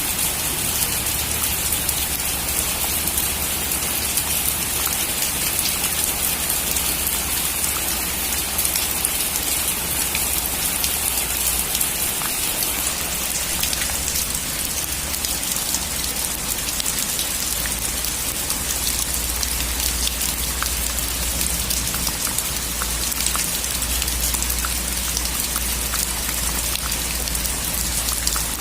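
Heavy rain drumming steadily on a metal roof: a dense, even hiss of countless drops with fine individual ticks, over a low rumble.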